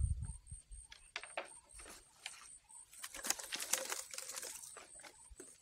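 Thin plastic bag crinkling and rustling as it is handled, with scattered sharp crackles and a dense burst of crinkling around the middle.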